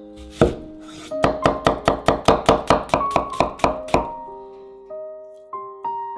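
Chinese cleaver slicing a red onion on a wooden cutting board: one cut about half a second in, then a quick, even run of about fourteen knife strikes on the board, about five a second, stopping at about four seconds. Background music plays underneath.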